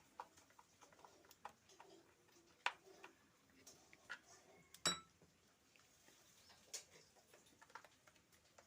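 Faint, scattered small clicks and ticks of a screwdriver and the plastic speaker casing being handled while the screws of the back cap are driven in, with two sharper clicks about a third and just past halfway through.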